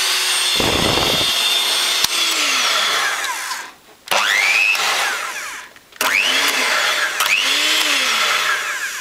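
Sunbeam Beatershot hand mixer's small brushed motor running with a steady whine. It is switched off and on again several times: the whine dies away, then rises and settles in pitch each time it restarts. The commutator and switch contacts have been freshly cleaned of carbon and the bearing oiled, and the repairer says it now sparks only at startup.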